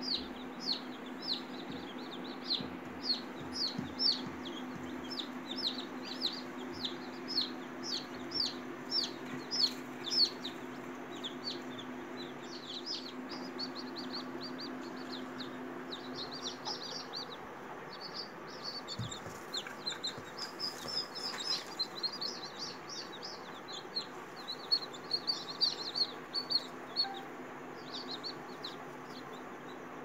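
Newly hatched chicks peeping: short high chirps, about two or three a second at first, then from several chicks at once and overlapping in the second half. A steady low hum runs underneath.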